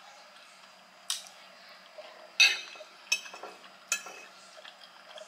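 Metal fork clinking and scraping against a plate, with four sharp clinks; the loudest is about two and a half seconds in.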